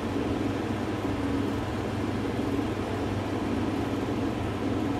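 Steady low hum with an even background hiss, holding constant throughout.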